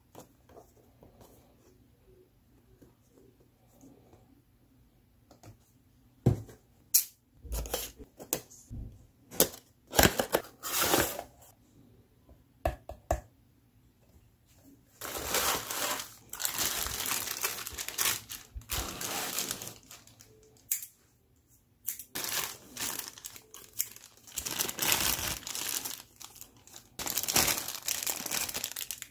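Handling and opening a cardboard figure box: sharp taps and rustles of the flaps starting about six seconds in. From about halfway, long stretches of clear plastic bags crinkling as the figure's parts are unwrapped.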